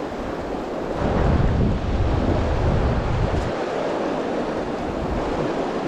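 Fast river rushing over rocks, with a gust of wind buffeting the microphone from about a second in until about halfway.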